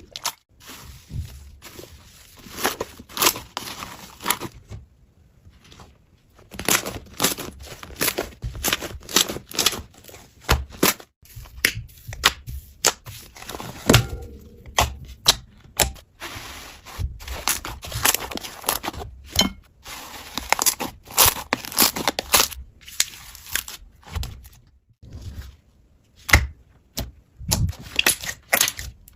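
Slime being squeezed and pressed by hand, making irregular crackling, popping and crunching sounds with a couple of short pauses.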